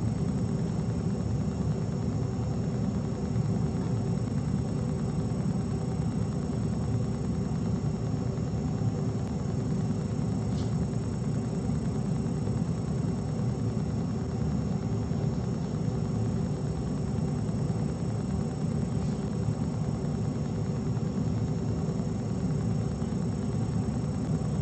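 Steady low mechanical hum and rumble with a few faint steady tones above it, and a faint tick about ten seconds in.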